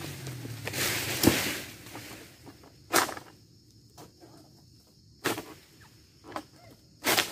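Pole-mounted sickle (egrek) hacking at oil palm frond stalks high in the crown. Sharp knocks come every second or two, with a rustle of fronds about a second in.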